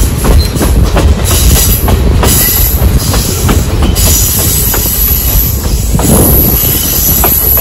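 Essex Steam Train passenger coaches rolling along the track: a steady heavy rumble with the wheels clicking over rail joints. A thin high wheel squeal comes in about halfway through.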